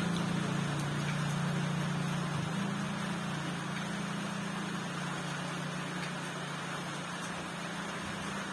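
Steady rain hiss with a steady low motor hum underneath, slowly fading.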